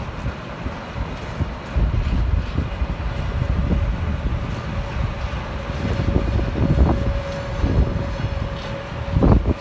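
SJ Rc6 electric locomotive and train running on the rails: a low, uneven rumble of wheels with a steady hum held on one pitch. A couple of sharp knocks come near the end.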